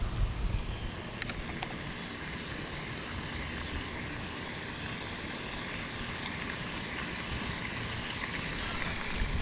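Steady outdoor background noise with no distinct source, and two faint clicks a little over a second in.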